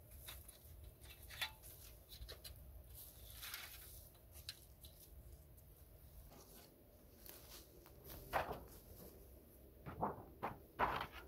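Dry fallen leaves and dead ferns rustling and crunching as they are handled and trodden on, faint at first, with a few louder, sharp crunches near the end.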